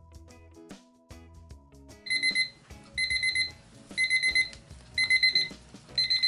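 Digital kitchen timer alarm going off as its countdown hits zero: from about two seconds in, bursts of four quick high beeps, repeating about once a second. It marks the end of the timed resin-mixing period.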